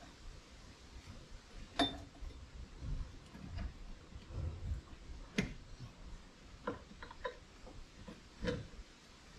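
A screwdriver worked by hand into the cargo-area trim material over the rear strut mounts: scattered light clicks and taps with soft scraping and rustling between, and sharper ringing metallic ticks about two seconds in and again near the middle.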